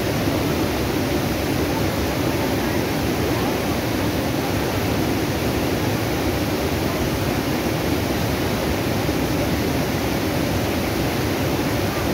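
Floodwater pouring over a reservoir spillway and churning below it: a steady, unbroken rush of falling water.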